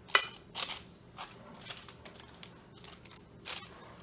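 Parchment paper crinkling and a utensil scraping in a glass baking dish as strawberry jelly is spread over the bar base: a string of short, irregular crinkles and scrapes, the sharpest just at the start.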